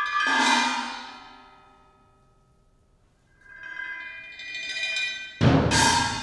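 Solo multi-percussion playing: mallet strokes on small ringing, bell-like instruments that die away to near quiet, then another cluster of ringing strokes. About five and a half seconds in comes one loud, full strike that rings on.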